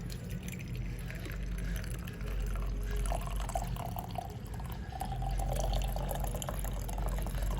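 Hot tea being poured into a cup, the liquid splashing as the cup fills over a few seconds.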